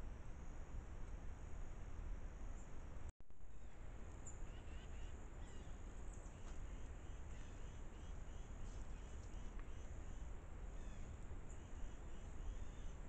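Steady high-pitched insect drone over the trail camera microphone's hiss and low rumble. About three seconds in the sound cuts out for an instant where one camera clip ends and the next begins. From about four seconds in, a short high chirp repeats roughly twice a second until near the end.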